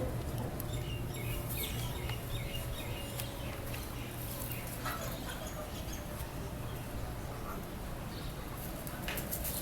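Desi chickens making scattered soft chirps and calls, over a steady low hum.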